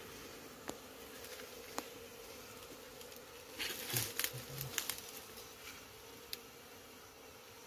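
Honeybees buzzing in a steady hum at a wild nest in a rock crevice. Scattered sharp clicks, with a burst of crackling and rustling around the middle as hands work among the leaves and comb.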